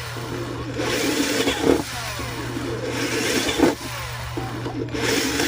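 12V cordless drill's motor running in bursts, surging louder about every two seconds and slowing with a falling whine in between.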